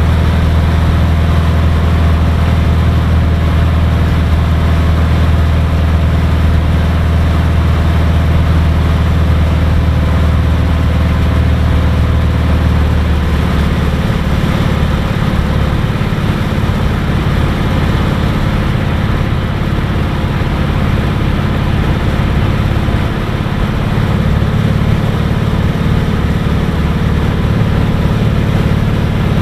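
Cirrus SR20's piston engine and propeller running steadily, heard from inside the cockpit; about halfway through, the steady low engine tone changes and becomes less even.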